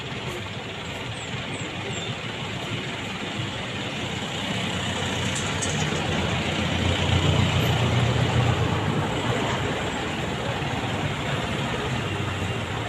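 Road traffic passing: steady engine and tyre noise, with a heavy vehicle's low engine rumble swelling to its loudest about seven seconds in and then fading.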